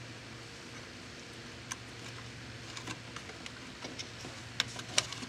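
Scattered small plastic clicks and taps from fingers handling the bill validator's belt, guide wheel and axle parts, the loudest about five seconds in, over a steady low hum.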